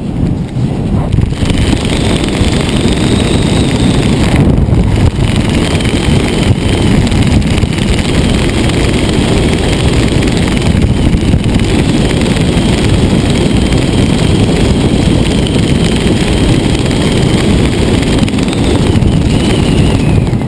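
Airflow buffeting a helmet-mounted camera's microphone under a parachute canopy: a loud, steady low rumble of wind noise. A faint thin high whistle sits above it from about a second and a half in.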